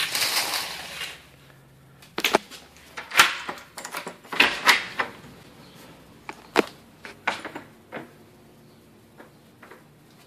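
A brief rustling noise, then a run of scattered knocks and clicks.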